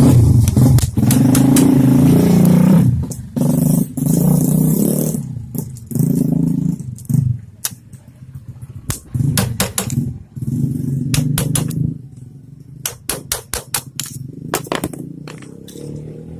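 A motorcycle engine running and revving in bursts, loudest in the first three seconds, with scattered sharp metallic clicks and taps, most of them in the second half.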